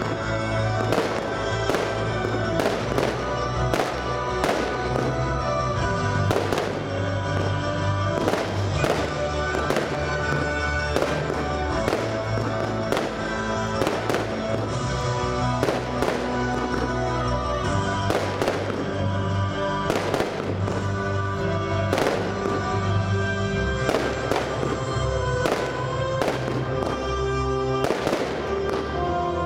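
Fireworks shells bursting in a steady run of sharp bangs, about two or three a second, over loud music with a heavy bass beat.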